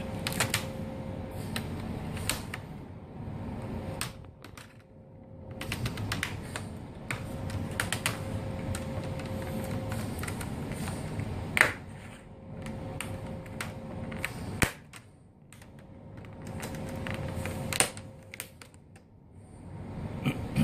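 Plastic laptop screen bezel being pried off with a small flat-blade screwdriver: irregular clicks and snaps as its clips let go, with a couple of louder snaps.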